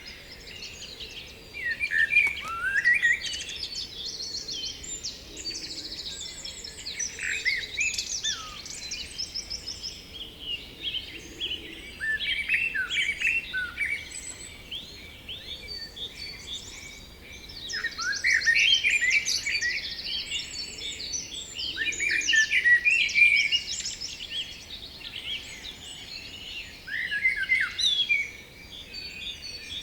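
Several songbirds singing at once: overlapping whistled phrases and fast trills, swelling in louder bursts every few seconds.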